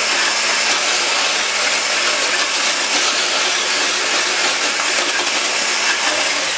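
Hand-held stick blender with a whisk attachment running steadily at one speed, its motor humming evenly as it whisks a thin custard mixture of milk, starch and eggs smooth in a plastic jug.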